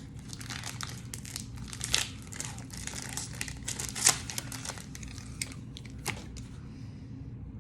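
Foil Pokémon booster-pack wrappers and cards crinkling and rustling as they are handled, with irregular sharp crackles, the loudest about two and four seconds in. A low steady hum runs underneath.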